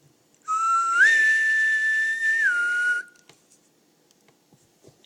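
A person whistling one breathy note for about two and a half seconds. The pitch steps up about a second in and drops back down shortly before it stops.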